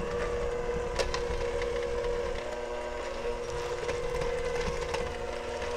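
KitchenAid electric hand mixer switched on and running steadily at low speed, its beaters working a thick cream cheese and peanut butter batter in a glass bowl. A single sharp click about a second in.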